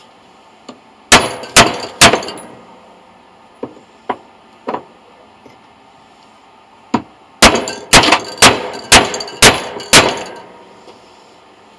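Hammer blows on metal, each with a short ring. Three hard blows come about a second in, then a few lighter taps, then a quick run of about eight blows from about seven to ten seconds in.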